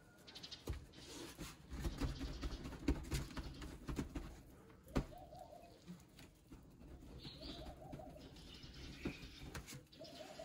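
Pigeons cooing: three short rising-and-falling coos, a few seconds apart in the second half, over scattered sharp knocks and low handling noise.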